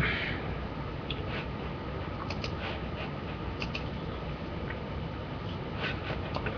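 A few faint, short clicks scattered over a low, steady room hum.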